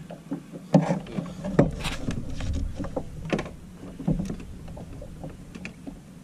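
Sharp knocks and clicks of fishing gear being handled aboard a plastic fishing kayak, several strokes a second or so apart, over a steady low rumble.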